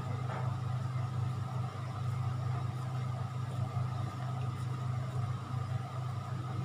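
A steady low hum, even in level and without breaks.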